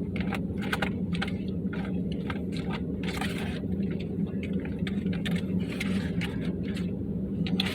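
Steady low hum of an idling truck engine, with scattered small clicks and scrapes on top.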